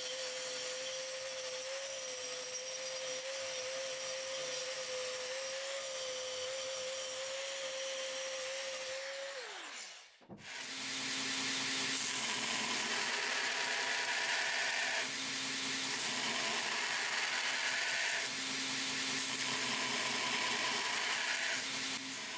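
Angle grinder running with a steady whine as its disc cuts a bar of hardened high-speed steel, then winding down about nine seconds in. After a short break a belt grinder's sanding belt grinds the steel chisel blank, the grinding noise swelling and easing in passes of a few seconds as the steel is pressed onto the belt.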